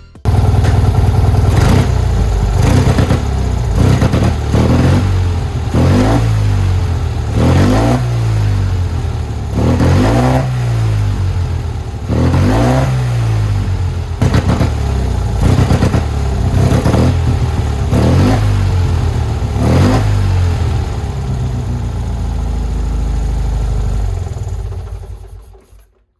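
Classic Fiat 500's air-cooled two-cylinder engine revved repeatedly, its note rising and falling over and over, then fading out near the end.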